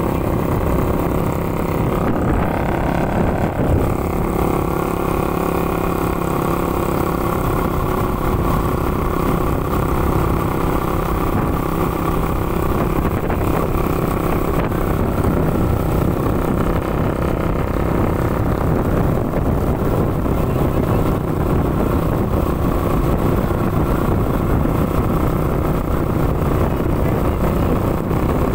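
Motorcycle engine running steadily at riding speed, with wind and road noise.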